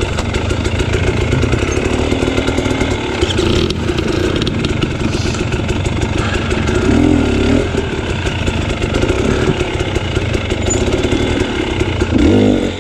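Dirt bike engine running under load up a steep rocky trail, the throttle rising and falling, with brief revs about seven seconds in and again near the end.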